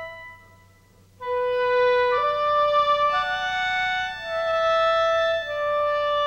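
Closing-credits music: a slow melody of long held notes in a woodwind-like timbre, with a short pause about a second in before the melody resumes.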